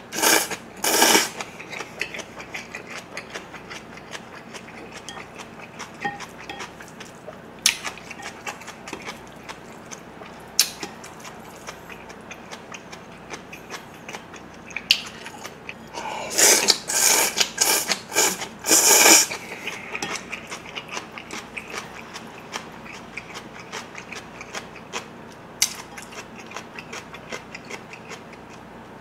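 Close-miked eating of spicy cold noodles with young radish kimchi (yeolmu bibim-myeon): a loud slurp about a second in and a run of loud slurps a little past the middle, with steady crisp chewing clicks in between.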